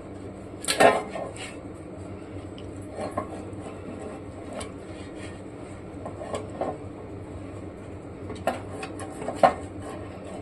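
Silicone pastry brush being worked over a Prestige metal loaf pan as it is greased: soft brushing with a few short metallic clanks of the brush and pan, the loudest about a second in and another near the end.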